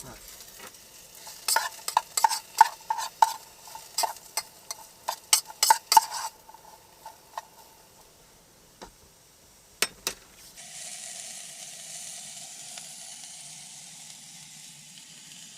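Mushrooms and carrots being stirred in a metal pan on a camp stove: a utensil clicks and scrapes against the pan in quick strokes for about five seconds, with two more knocks later. From about ten seconds in the vegetables sizzle steadily as they fry.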